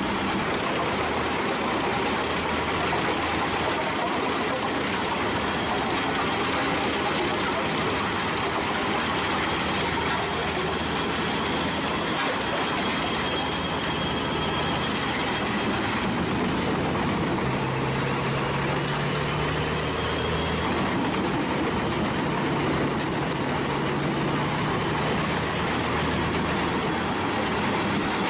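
Wood chipper's engine running steadily under a dense, even mechanical noise, with no distinct bangs or surges.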